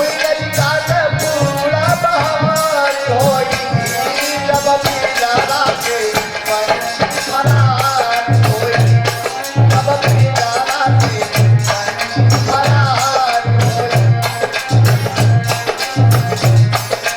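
Instrumental music of a Hindi devotional folk song: a wavering melodic lead over a tabla-like hand-drum beat and a rattling shaker, with the low drum beat coming in strongly and evenly about halfway through.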